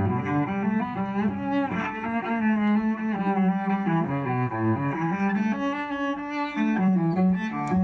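Solo cello bowed, playing a melody of held notes that change every half second or so.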